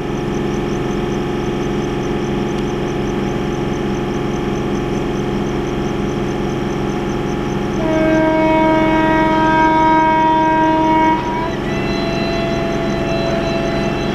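Express train running through at speed, a steady rumble, then its locomotive horn sounds about eight seconds in: a long multi-note blast that changes to a slightly different chord about eleven seconds in and holds until near the end.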